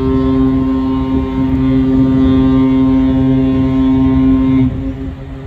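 An oil tanker's horn sounding one long, steady blast as a fog signal. It cuts off about four and a half seconds in, and a fainter echo trails after it.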